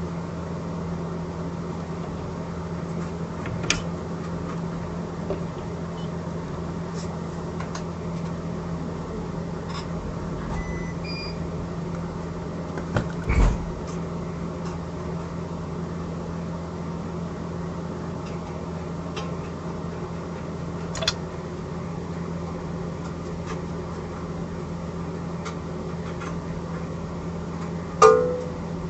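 A steady low machine hum, like a small fan or transformer, with a few light clicks and knocks. The loudest knock comes about halfway through and another near the end.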